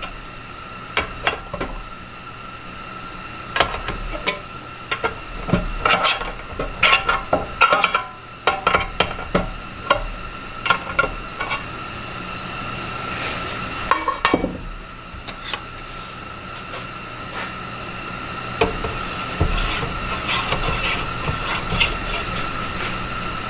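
Stir stick scraping and knocking against the inside of a can of automotive base coat paint as it is stirred, in irregular bursts of clicks and taps that thin out after the first half. A steady high hum runs underneath.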